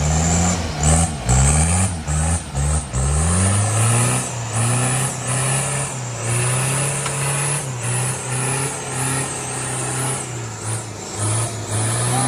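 Off-road 4x4's engine revved in short repeated blips, then held at higher revs with brief dips, as the vehicle is driven hard through rough ground.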